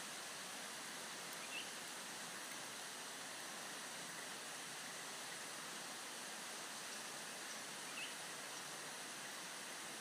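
Steady even hiss of forest background, with two brief high chirps, one under two seconds in and one about eight seconds in.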